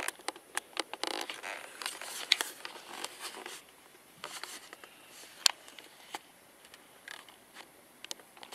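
Cloth rubbing and scraping against a handheld microphone, dense for the first few seconds and then giving way to a few scattered sharp clicks, one louder than the rest about five and a half seconds in.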